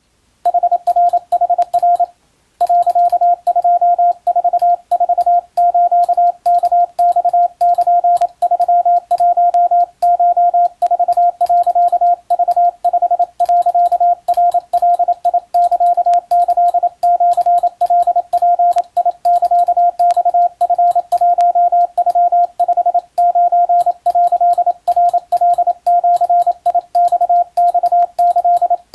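Morse code: a steady mid-pitched tone keyed on and off in short and long elements, sending a Japanese Wabun-code telegram, with a brief pause about two seconds in. Faint clicks come with the keying.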